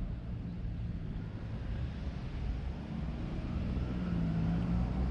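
A motor vehicle's engine running nearby as a low steady rumble, growing a little louder toward the end.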